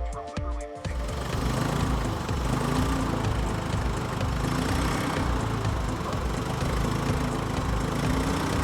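1970 GMC 5500 grain truck's engine running steadily at idle, with a low, even pulsing. Background music fades out about a second in.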